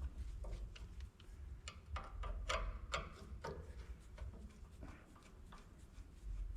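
Light clicks and taps of metal parts being handled and fitted on a small bandsaw, with a cluster of sharper knocks about two to three and a half seconds in, over a low hum.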